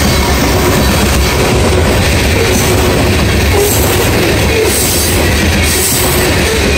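Loaded coal train's hopper cars passing fast at close range: a loud, steady rumble of steel wheels on the rails.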